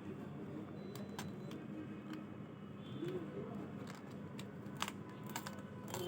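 Scattered light clicks and taps from handling a laptop's plastic case and parts during disassembly, a few separate clicks over a steady low hum.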